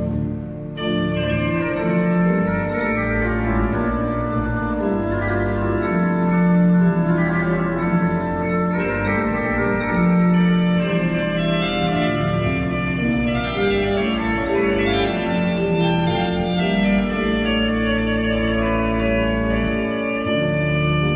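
Ruffatti pipe organ playing full sustained chords over low pedal bass notes, the harmony changing every second or so. The full sound comes in just under a second in.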